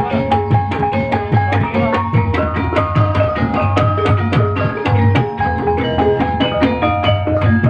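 Javanese ebeg accompaniment music: hand drums keep a steady beat under interlocking melodies on struck pitched percussion, in the gamelan style.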